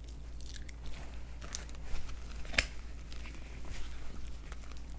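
Plastic wrap on a foam meat tray crinkling and rustling as raw chicken drumsticks are handled, with small clicks and one sharper click about halfway through.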